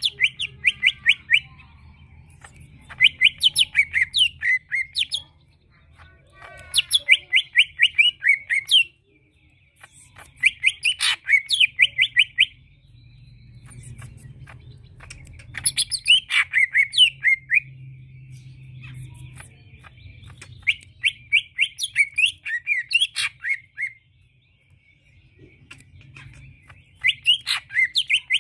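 Male greater green leafbird (cucak ijo) singing: about seven bursts of rapid, chattering whistled notes, each burst one to three seconds long, with short pauses between.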